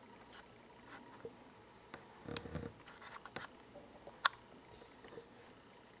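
Quiet room with scattered faint clicks and light knocks: a brief rustle about two and a half seconds in, and a sharp click just after it and another about four seconds in.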